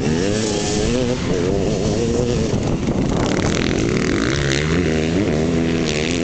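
Off-road dirt bike engines revving hard as riders accelerate past, the pitch climbing and dropping with throttle and gear changes. A sharper rising rev comes about four to six seconds in.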